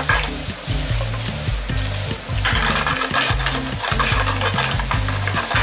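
Chicken fried rice sizzling in a frying pan while a wooden spatula stirs and scrapes it through, the sizzle swelling and easing in waves as the rice is turned.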